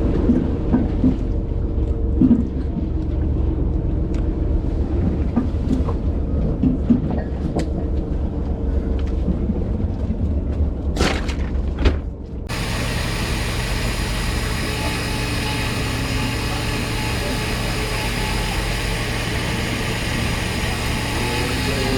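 Boat engine running with a low steady hum and scattered knocks. About twelve seconds in, the sound changes abruptly to a steady rushing noise.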